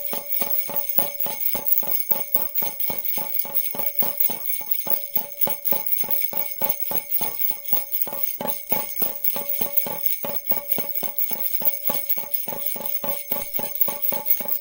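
Handheld jingle-bell bracelet with four small metal bells on a red plastic holder, shaken in a steady rhythm of about three or four jingles a second.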